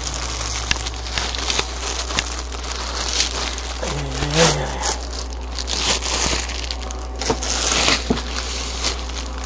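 Packaging crinkling and rustling with many small knocks and clicks as a rifle is worked out of its box one-handed. A short hummed voice sound about four seconds in.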